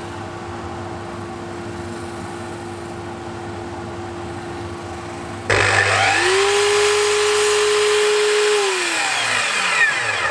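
A Jet belt sander running steadily. About five and a half seconds in, a miter saw motor starts sharply and spins up, runs at full speed for about three seconds, then is released and winds down near the end.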